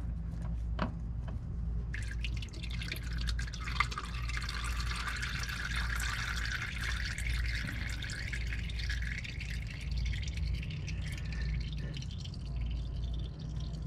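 Used engine oil draining from a loosened spin-on oil filter, streaming and dripping. The flow picks up about two seconds in and tapers off toward the end.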